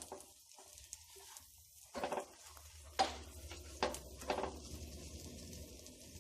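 Wooden spatula scraping and knocking against a frying pan as buttered sandwiches are turned over: a few separate knocks about two, three and four seconds in, over faint sizzling.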